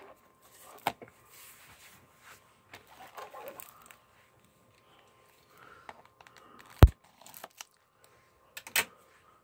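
Handling sounds of plastic DVD cases being moved on a hard surface: scattered light clicks and rustles, a sharp knock about seven seconds in, the loudest, and another clatter near the end.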